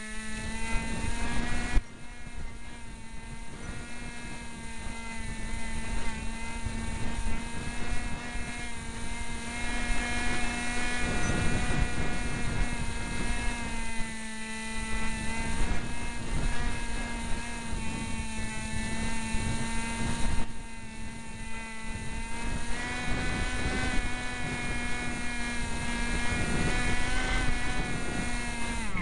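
Cox SkyCruiser RC plane's electric motor and propeller whining at near full power, heard from a camera on board, the pitch wavering up and down. A low rumble of wind buffeting the plane runs beneath.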